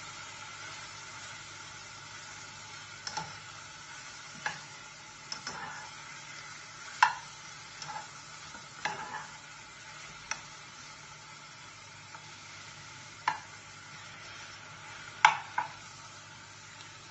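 Chopped seasonings sizzling in a frying pan while being stirred, with a steady hiss and the stirring utensil knocking against the pan about a dozen times at uneven intervals, loudest about seven seconds in and near the end.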